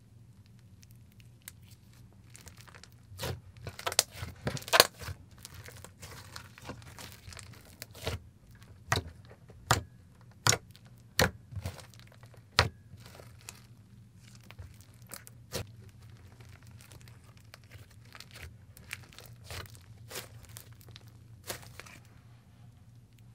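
Fingers poking, pressing and stretching a thick neon green clay slime, making sharp sticky pops and crackles. A quick cluster of loud pops comes about three to five seconds in, then single pops roughly a second apart, thinning to softer crackles later.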